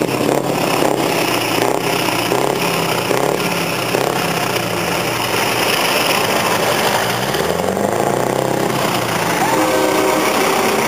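Scania 164L 580 truck's V8 diesel with open exhaust pulling away, its engine note rising as it revs about seven seconds in. Another truck's engine comes closer near the end.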